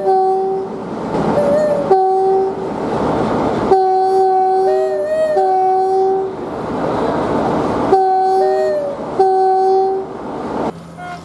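UK train two-tone horns sounding low-high-low, three times over in quick succession, each short blast clear and steady, over the noise of the moving train. Near the end a different horn holds a single steady tone.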